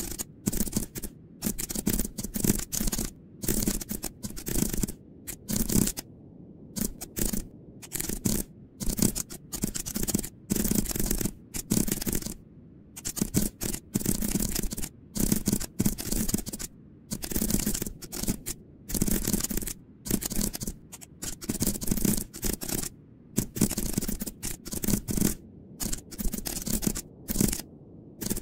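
Computer keyboard typing in quick, irregular bursts of keystrokes with short pauses between them.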